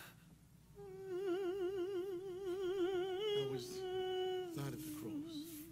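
A woman's voice singing long wordless held notes with strong vibrato: one held for about two seconds, then a shorter note, then another wavering note near the end.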